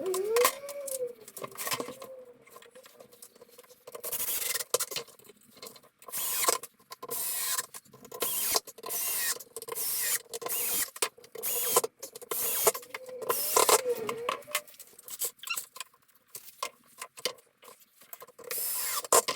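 Irregular rubbing and scraping strokes of hand tool work on wood, some short and some about a second long. A thin, wavering squeak sounds near the start and again about two-thirds of the way through.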